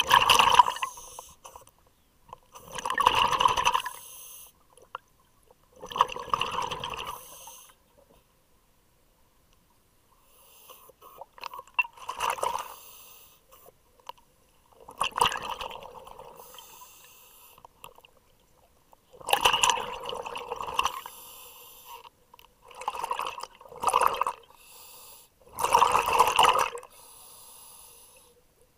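Scuba diver breathing through a regulator underwater: about nine bursts of exhaled air bubbling out, each a second or so long and a few seconds apart, with a longer pause about eight seconds in.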